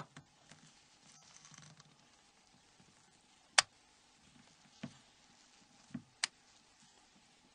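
Sparse sharp clicks and light taps of the Nokia N93's plastic housing parts as they are handled and pressed together. There are two sharp clicks, a little after three and a half seconds and near six seconds, and fainter taps between them.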